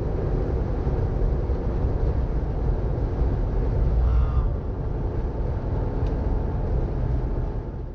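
Steady low rumble of a vehicle on the move: road and engine noise, even throughout, with no voices.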